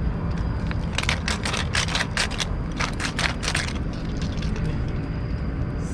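Pepper being dispensed onto chicken-cartilage skewers over a charcoal grill: a run of about a dozen quick, sharp strokes, some four to five a second, for about three seconds from a second in, over a steady low background noise.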